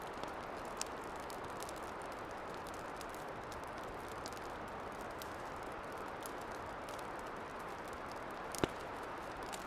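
Campfire burning: a steady hiss with scattered small crackles and one louder pop near the end.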